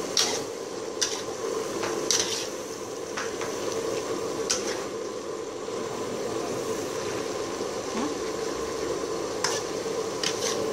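Food sizzling and bubbling in a steaming aluminium wok, with a metal spoon scraping and clinking against the pan now and then as it is stirred, most often in the first few seconds and again near the end.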